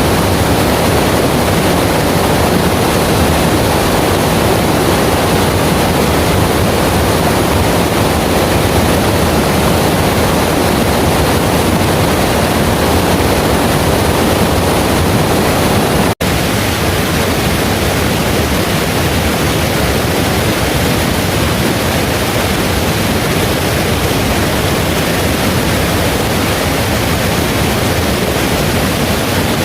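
Heavy rain falling steadily in a dense, loud hiss. It cuts out for an instant about halfway through, then carries on.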